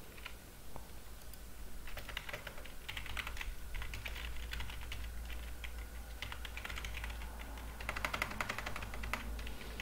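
Typing on a computer keyboard: quick runs of key clicks, only a few in the first couple of seconds, then steady typing with a fast burst near the end.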